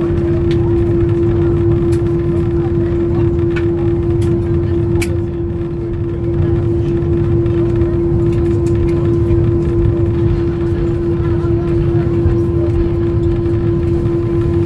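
Cabin noise of an Airbus A319 taxiing after landing: a steady low rumble with a constant droning hum, and a few faint clicks.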